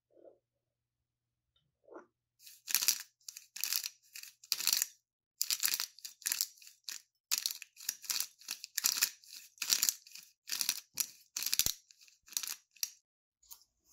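Peppercorns being ground in a twist-top peppercorn medley grinder: a run of crunchy grinding strokes, about two a second, starting about two seconds in.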